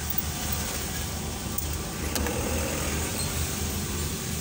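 Vehicle engine running steadily at low speed, heard from inside the cab, a low hum with road noise; a brief click about two seconds in.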